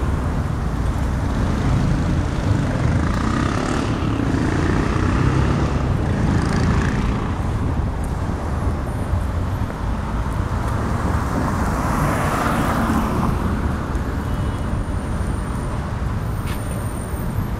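City street traffic: a steady rumble of car engines and tyres, with vehicles passing close and swelling louder about four seconds in and again about twelve seconds in.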